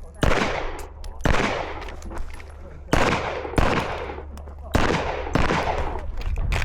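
About seven gunshots from a competition course of fire, loud and sharp, each with a ringing echo that trails off, fired at uneven spacing and several in quick pairs.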